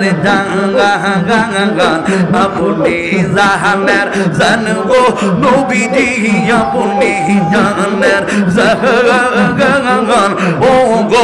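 A man singing a Bengali zikir (devotional chant) into a microphone, a continuous wavering melody with vibrato, over steady rhythmic hand-claps.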